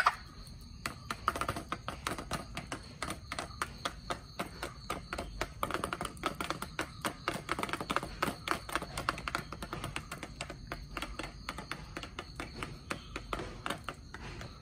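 Chickens pecking at feed in a feeder pan and on the ground: rapid, irregular beak taps, several a second.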